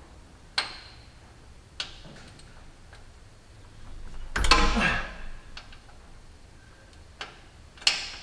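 Hand tools clicking and knocking against a tractor's drain bolt and axle housing as the bolts are worked with a wrench: a few sharp separate clicks, with a longer, louder scraping clatter around the middle.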